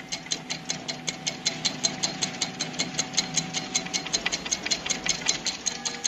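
Clock ticking fast and evenly, about six or seven ticks a second, over faint held musical tones.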